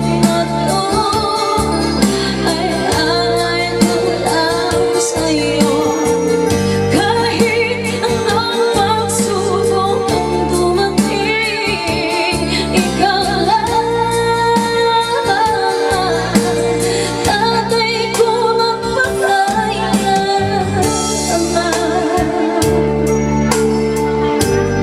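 A song with a female singer over keyboard and bass backing, in a gospel style, played loud through a PA sound system.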